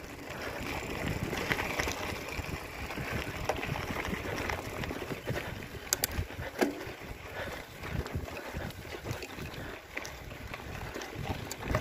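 Mountain bike climbing a loose gravel trail: the tyres crunch and rumble over stones while the frame and parts rattle. There is a sharp click about six seconds in.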